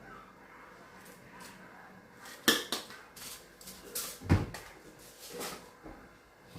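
Kitchenware being handled: a handful of sharp knocks and clinks, with a heavier thud about two-thirds of the way through.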